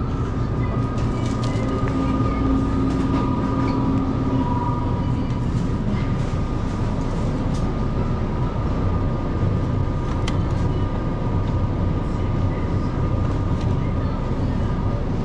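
Steady running noise of a vehicle in motion: a low drone with a faint high whine, and a lower hum that fades out about four and a half seconds in.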